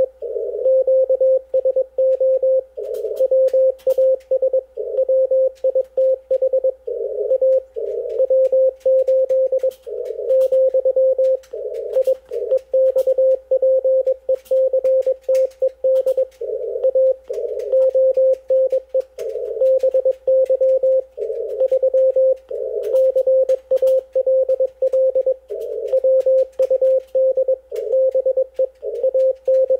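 Morse code (CW) received on an Icom IC-746PRO HF transceiver in the 80-metre band. One steady mid-pitched beat tone is keyed on and off in dots and dashes, with faint static crackles behind it.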